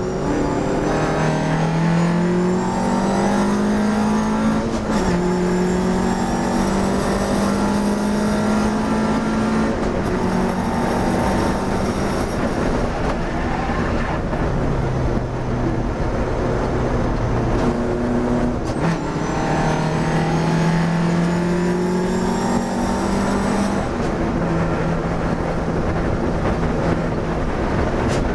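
Classic sports racing car's engine heard from inside the cockpit, pulling hard. Its pitch climbs and then drops back at several gear changes, over heavy wind and road noise.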